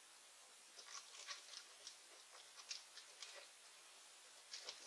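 Near silence with faint, scattered small clicks and rustles from a receipt printer and its cable being handled.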